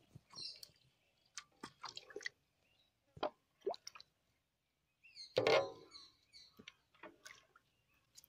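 Watermelon pulp and juice being stirred with a wooden stick in a large steel pot: wet sloshing and plopping in short, irregular strokes.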